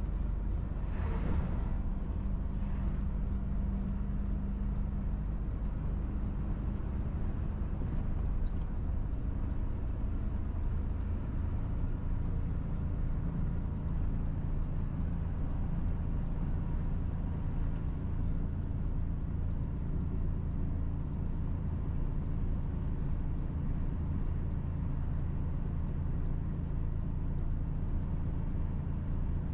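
Steady engine drone and road noise inside a heavy truck's cab while driving. About a second in, an oncoming lorry passes with a brief rush of air.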